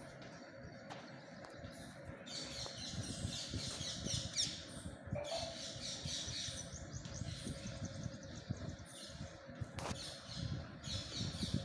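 Chalk scratching across a blackboard in runs of writing strokes about a second long, with short pauses between them, and one sharp knock near the end.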